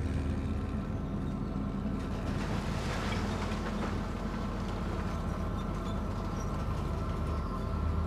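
Bulldozer engine running steadily with a low, even hum, with a brief swell of hiss about three seconds in.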